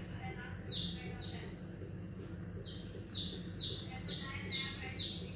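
A small bird chirping in bouts, short falling high chirps about three a second, with a pause in the middle.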